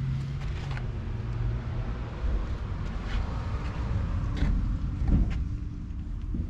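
Steady low mechanical hum, with a few light clicks and a short knock about five seconds in.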